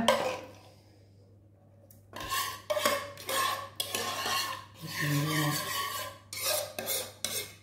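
A spoon scraping and stirring around the inside of a cooking pot, gathering up the last of the ragù. The strokes come in repeated bursts after a short quiet spell about a second in.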